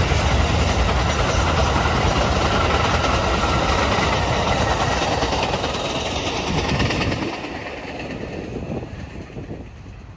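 Amtrak passenger train's coaches rolling past with a rumble and rail clatter, which fades away as the last car goes by about seven seconds in.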